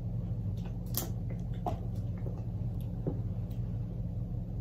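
Quiet eating sounds: a few scattered mouth clicks and smacks from chewing fresh fruit, the sharpest about a second in. Under them runs a steady low hum.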